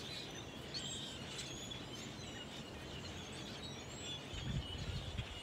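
Outdoor background with birds chirping faintly in the distance, and a low rumble about four seconds in that lasts about a second.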